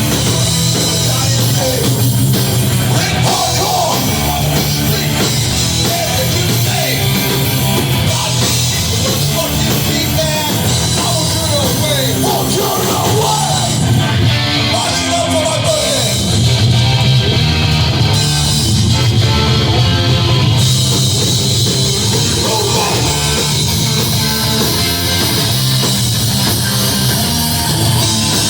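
Hardcore punk band playing live at full volume: distorted electric guitars, bass and drums, with a voice over the top.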